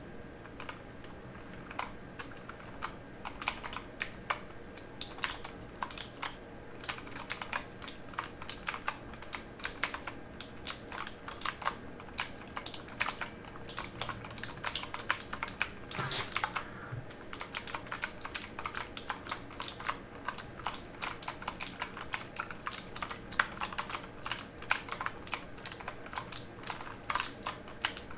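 Typing on a mechanical keyboard: crisp key clicks, a few scattered strokes at first, then a steady run of rapid keystrokes from about three seconds in.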